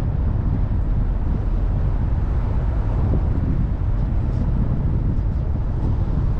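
Car driving at road speed: a steady, dense low rumble of road and wind noise that flutters unevenly.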